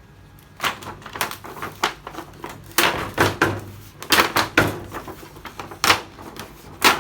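Irregular knocks and clatters of hard objects being handled, a dozen or so sharp strikes starting about half a second in, the loudest near the end.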